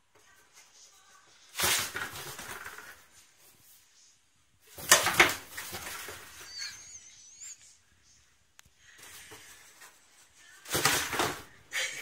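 Cardboard box scraping and bumping on a fridge top as a cat inside shoves it about, in several noisy bursts: one about a second and a half in, one about five seconds in, and a cluster near the end.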